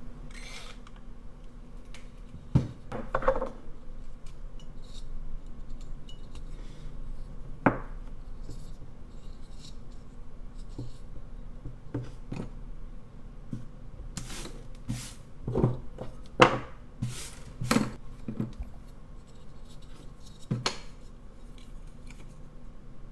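Handling noise at a woodcarving bench: about a dozen scattered knocks and clicks with light scratching and rubbing as a basswood blank and small tools are turned in the hands and set down on a wooden table. The knocks come thickest a little past the middle.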